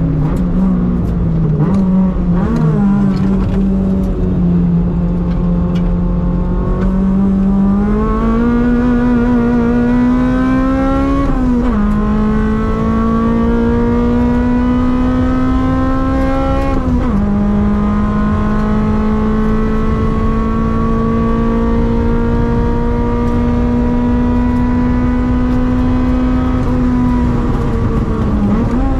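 Toyota Corolla AE101's 4A-GE 20-valve four-cylinder engine under hard acceleration on track, heard from inside the cabin. After a brief wobble in the revs early on, it climbs through the revs, upshifts twice, about twelve and seventeen seconds in, then pulls long and steadily in the higher gear, dipping slightly near the end.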